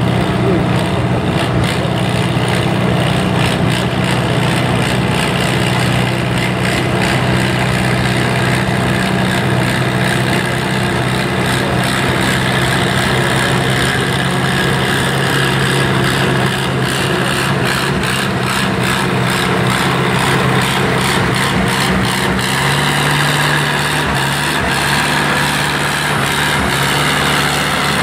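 Farmall M tractor's engine running steadily under load as it pulls a weight-transfer sled at slow speed, its note shifting in pitch about 22 seconds in.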